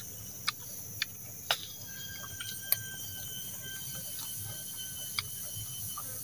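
Steady high-pitched buzz of forest insects with a couple of thin steady tones, broken by about six short sharp clicks from a spoon and eating at a leaf plate.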